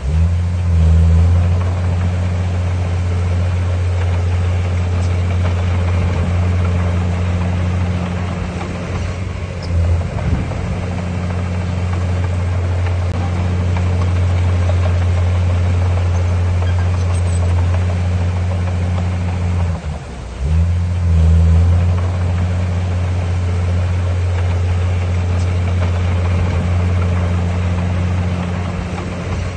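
Heavy diesel engine running steadily with a deep, even hum. It eases off briefly about twenty seconds in, then picks up again.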